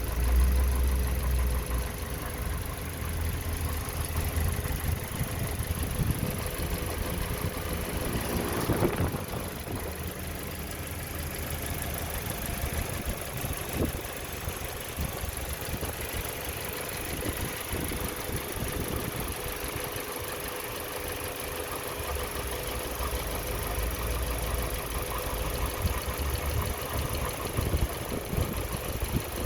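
Toyota Corolla 1.8-litre four-cylinder engine running with a steady rattle of fine, rapid ticks, which the owner takes for a bearing rattle.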